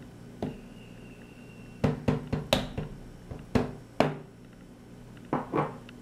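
A cup knocked sharply against a blender jar several times, the knocks bunched in the middle with two more near the end, while sugar is emptied out of it.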